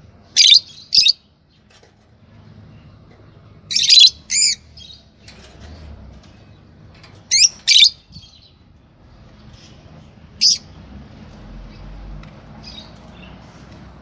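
Lovebirds giving loud, shrill, high-pitched calls, mostly in pairs: two near the start, a cluster about four seconds in, two more about seven and a half seconds in, and a single one about ten seconds in.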